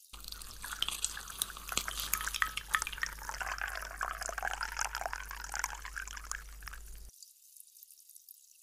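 Soda poured into a glass over ice cubes, the liquid splashing and the carbonation fizzing with many small crackles. The sound cuts off abruptly about seven seconds in.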